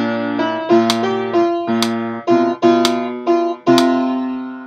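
Upright piano playing struck chords, one or two a second, each ringing and dying away. The accompaniment has mistakes: the player calls it very wrong.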